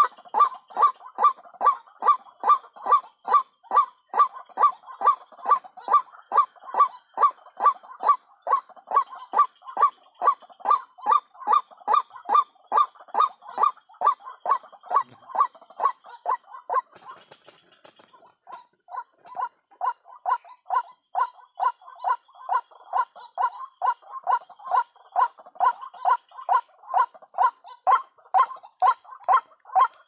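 White-breasted waterhen calling, a harsh kwak repeated about twice a second in a long steady series that breaks off briefly in the middle and then resumes.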